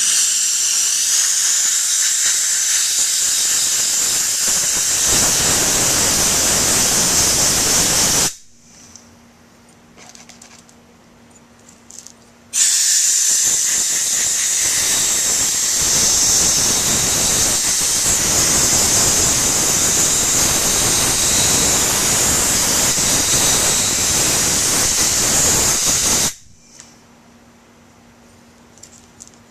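Homemade soda blaster, an air blow gun siphoning baking soda through a clear hose, blasting a carburetor float bowl: a loud steady hiss of air and soda. It runs in two long bursts, about eight and fourteen seconds, with a pause of about four seconds between them, and stops a few seconds before the end.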